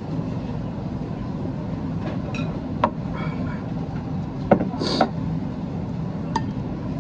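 Tableware clinking: a ceramic soup spoon and a water glass knocking against plates and bowls, a few separate clinks, the loudest two close together about four and a half seconds in. A steady low hum of the restaurant runs underneath.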